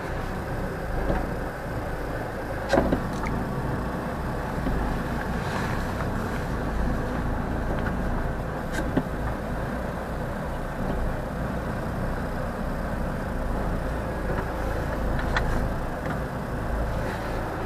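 Lorry's diesel engine running steadily, heard from inside the cab, with a few short knocks and clicks; the loudest about three seconds in.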